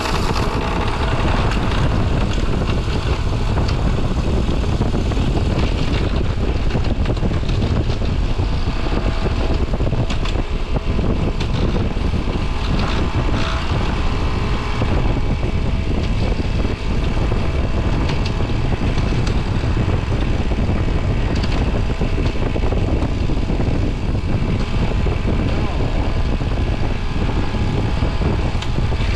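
Trane XR outdoor AC unit starting up, then running steadily: condenser fan and new Alliance scroll compressor giving a deep, even hum. The replacement compressor is doing the exact same thing as the failed one.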